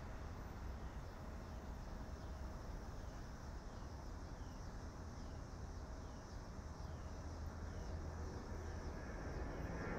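Outdoor ambience with a steady low rumble. From about three seconds in comes a run of short falling chirps, repeating a little more than once a second.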